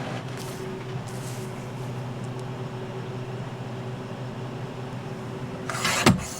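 A steady low mechanical hum with a few fixed tones. A brief loud sound comes near the end.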